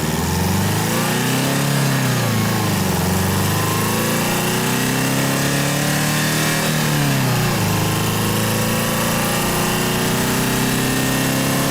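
Traffic jam: car engines idling and running, the engine pitch rising and falling a few times before holding steady for the last few seconds.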